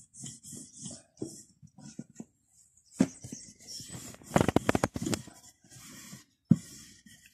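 A hand brushing flour across a round dough board in short scratchy strokes, with a run of sharp knocks and taps on the board near the middle.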